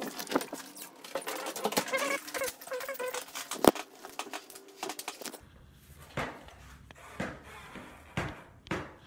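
A puppy whining in repeated high-pitched whimpers for the first few seconds, broken by one sharp knock; after that only scattered knocks and rustling as the phone is handled.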